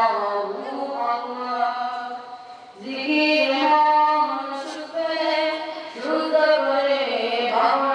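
A boy's voice reciting the Quran in Arabic in the melodic, chanted tilawat style, drawing out long ornamented notes, with a short breath about three seconds in.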